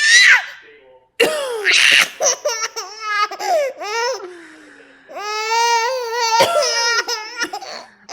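Baby laughing in a run of high-pitched, drawn-out squeals and chuckles with short breaks between them, set off by the mother's coughing.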